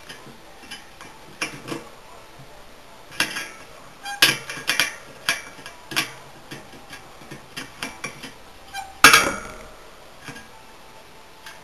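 Irregular small metallic clicks and ticks as a spoke key turns the spoke nipples of a bicycle wheel being trued, loosening spokes; the loudest click comes about nine seconds in.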